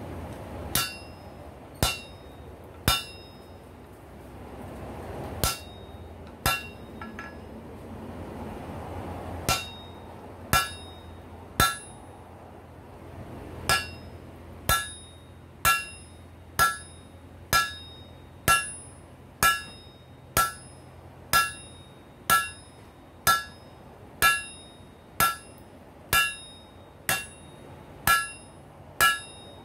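Hand hammer striking a red-hot rail spike on a steel anvil, each blow ringing with a few clear metallic tones. The blows come about a second apart, first in short groups of two or three with pauses, then a steady unbroken run from about halfway. A steady low hum runs underneath.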